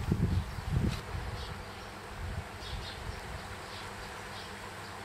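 Outdoor ambience: a steady low buzzing hum with short, faint bird chirps about once a second, and a few low rumbles in the first second.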